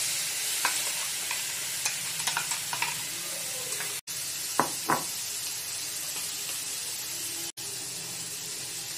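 Onions and capsicum frying in ghee in a nonstick pan break into a steady sizzle as a wet tomato, green chilli and ginger paste is poured in. Scattered light clicks and taps, with two sharper ones a little before halfway, come from the steel bowl as it is emptied into the pan. The sizzle drops out for an instant twice.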